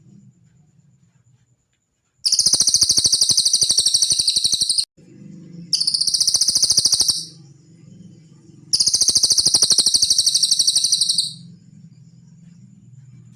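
Cililin songbird giving three long, very fast, high-pitched trills, the first and last about two and a half seconds each and the middle one shorter, over a faint low hum.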